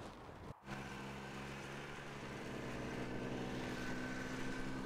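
Snowmobile engine running steadily while towing a loaded sled, starting in just under a second in after a brief drop-out and rising a little in pitch partway through.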